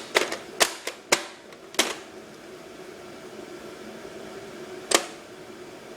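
A baby banging on hard plastic toys: four quick, sharp clacks in the first two seconds, then one more about five seconds in.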